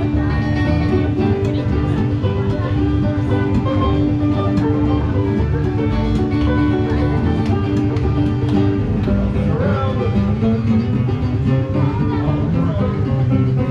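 Music played on plucked string instruments, with a steady beat and held notes.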